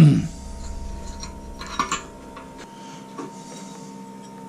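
Light metallic clinks and rubbing as small metal hardware and tools are handled, with a short knock at the start and a faint steady hum underneath.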